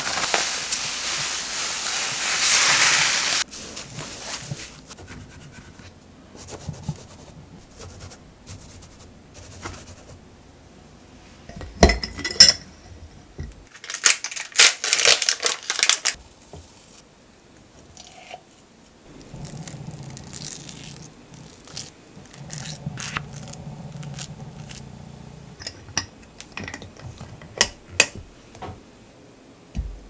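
Hands rustling and digging through dry sawdust in a box of stored potatoes for the first few seconds. After that come scattered clicks, knocks and short rustles of containers being handled, including a glass clip-top jar, with a low hum for a few seconds in the middle.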